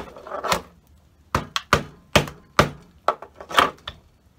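Mallet striking an old wooden hive box, about ten sharp wooden knocks at two or three a second, bursting the box joint loose so its nails can be pulled.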